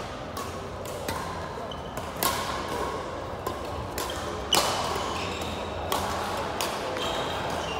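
Badminton rackets striking a shuttlecock in a doubles rally: several sharp hits a second or two apart, the loudest about two and four and a half seconds in. Short shoe squeaks on the court floor come between them.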